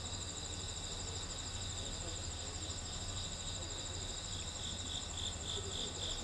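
Crickets chirring steadily in high trills at night, the trill pulsing about three or four times a second near the end, over a faint low hum.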